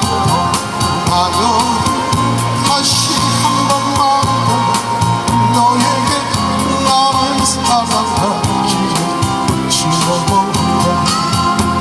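Live amplified music with a steady beat: a man singing into a microphone over electronic accompaniment played through a PA speaker.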